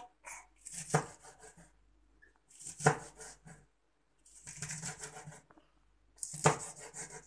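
Large chef's knife cutting spring onions on a plastic cutting board: four slow, separate cuts, each a sharp knock of the blade on the board with a short rasp of the blade drawn through the onion and across the board.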